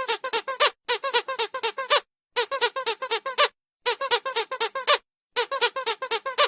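Squeaky dog toy squeezed rapidly, giving quick high squeaks of about six a second. They come in runs of about seven, each run followed by a short pause.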